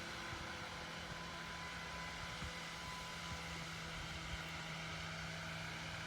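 Steady outdoor background rumble and hiss with a faint low hum throughout, like distant traffic or machinery.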